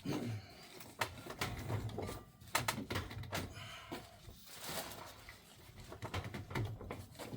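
Rubber wheelchair tire being stretched and pushed onto the wheel rim by hand, making irregular rubbing and clicking sounds.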